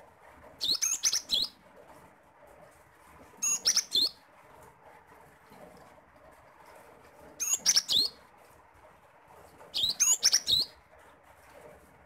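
Cinereous tit (gelatik batu) singing: four short bursts of rapid, high, clear notes, each under a second long, a few seconds apart.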